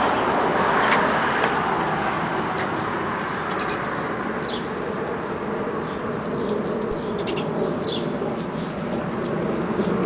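Outdoor ambience: a steady wash of distant traffic noise, a little louder in the first couple of seconds, with scattered faint bird chirps and light clicks.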